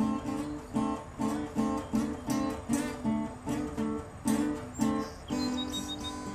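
Acoustic guitar music in a folk-classical style: chords plucked in a steady pulse about twice a second, changing a little past five seconds in to held, ringing notes.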